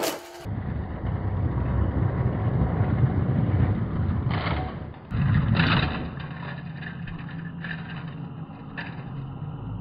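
Engine-like rumble, as of a monster truck, with two louder revs about four and five seconds in, then a steadier low drone.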